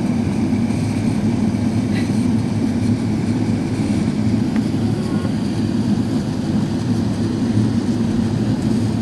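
Steady low roar inside the cabin of an Airbus A380 descending to land: engine and airflow noise, even throughout.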